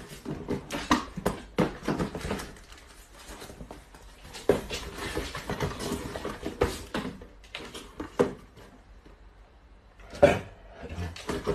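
Cardboard boxes being handled and packed by hand: irregular knocks, scrapes and rustles of cardboard and packing tape. There is a longer rustling stretch about five seconds in and a sharp knock near the end.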